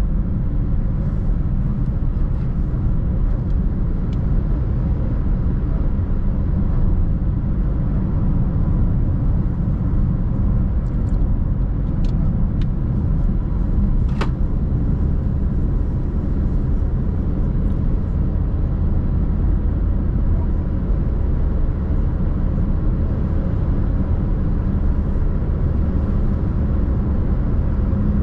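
A car driving at steady speed: a constant low rumble of road and engine noise, with a few faint short clicks about halfway through.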